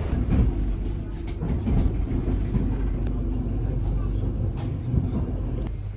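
Steady low rumble of a moving vehicle heard from inside, with faint indistinct voices and a few sharp clicks.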